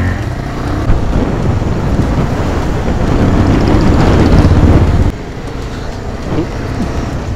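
Motorcycle engine running while riding, with wind buffeting the microphone. It grows louder through the middle and drops suddenly about five seconds in.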